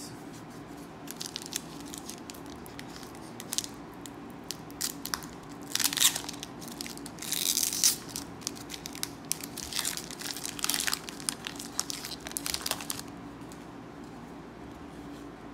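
A Pokémon Hidden Fates booster pack's wrapper crinkling and being torn open by hand, in quick runs of crackles from about a second in until near the end, loudest around the middle.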